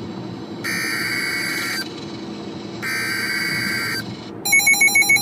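NOAA Weather Radio digital SAME alert data: two harsh, buzzy bursts about a second long each, the coded header that interrupts the broadcast for a new warning. Near the end the weather radio's own alert alarm starts, a loud rapid beeping.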